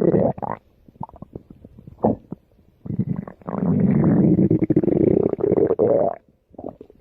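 Stomach growling. A growl cuts off just after the start, there is a scatter of short pops, then a long growl runs from about three to six seconds in.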